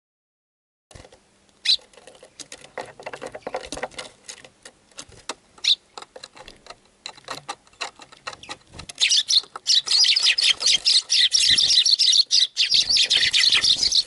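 Eurasian tree sparrows chirping and squabbling at close range, with many small taps of their feet and beaks on the wooden feeder. From about nine seconds in the chirping becomes a dense, loud chatter: a sparrow fight.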